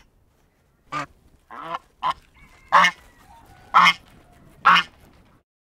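Domestic geese honking: about six short honks, roughly a second apart, the last three the loudest.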